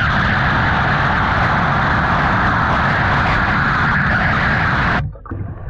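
CavitCleaner cavitation hull-cleaning lance running underwater, heard from the water: a steady loud rushing noise with a rumble beneath as its cavitation jet strips marine growth off the hull. Near the end the jet cuts out briefly.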